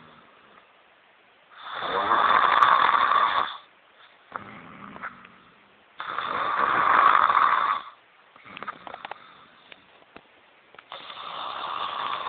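A woman snoring: three loud snores, each about two seconds long, coming every four to five seconds, with quieter, crackly breaths between them.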